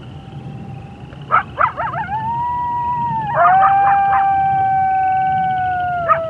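Coyote howling: long, steady howls broken by quick clusters of yips, about a second in, again around three and a half seconds, and once near the end, with one long howl held in between. Frogs and toads trill faintly underneath.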